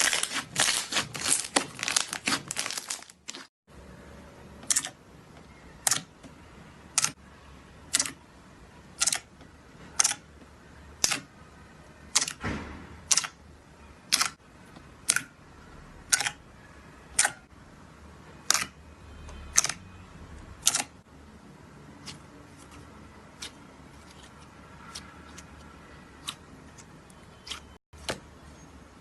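Slime being handled. It opens with about three seconds of dense crackling and crunching. After a brief gap come sharp single clicks about once a second, which turn fainter for the last several seconds.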